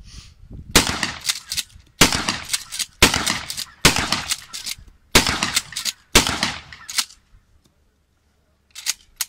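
Pump-action shotgun fired in a quick string of about seven shots, roughly one a second, stopping about seven seconds in.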